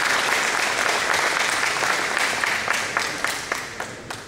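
Audience applauding, the clapping thinning to scattered claps and dying away near the end.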